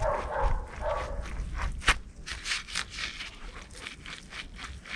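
Removed front wheel hub of a 1995 Chevrolet Blazer turned by hand, its worn bearings grinding roughly at first and then rattling with irregular clicks. The bearings are badly worn, the cause of the wheel hum.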